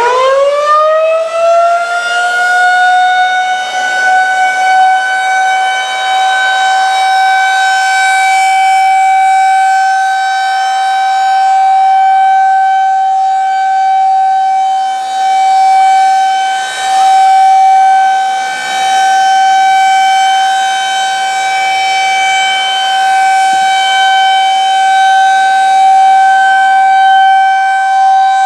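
Federal Signal 2001-SRNB outdoor warning siren winding up and then holding a steady single tone of about 772 Hz on its alert test. The pitch climbs fast in the first two seconds, then stays level while the loudness slowly swells and dips.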